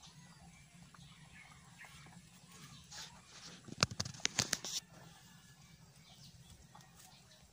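Rabbits rummaging in a clay bowl of feed pellets, giving a burst of sharp clicks and rustles about three to five seconds in over a low steady hum.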